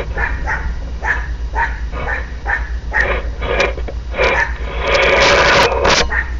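A dog barking repeatedly, two or three short barks a second, with a longer, louder burst about five seconds in.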